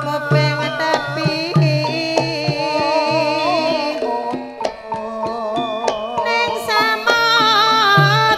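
Javanese gamelan music for a ledek dance, played loud through a sound system: a female singer sings a wavering, ornamented melody into a microphone over gamelan gongs and metallophones. Regular low kendang drum strokes keep the beat.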